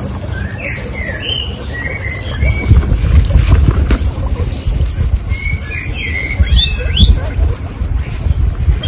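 Guinea pigs chewing raw carrot close to the microphone: a dense run of small wet crunches, louder from about three seconds in. Short high bird chirps sound over the top.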